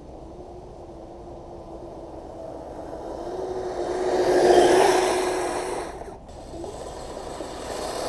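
Kyosho Blizzard RC snowcat's twin electric motors whining steadily, with its tracks running over snow. It grows louder as it comes up close, is loudest about halfway through, drops off sharply just after six seconds, then builds again near the end.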